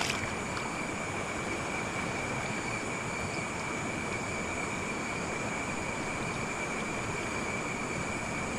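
Steady rushing of stream water around a wader's legs, heard close to the surface, with a constant high-pitched whine running underneath.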